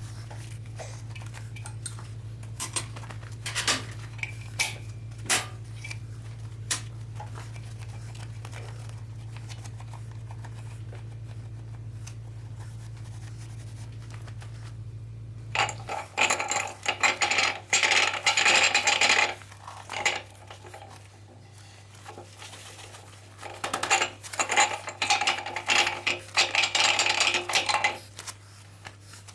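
Metal engine parts being handled: scattered metallic clinks over a steady low hum, then two spells of rapid metallic scraping and rattling, each a few seconds long, in the second half.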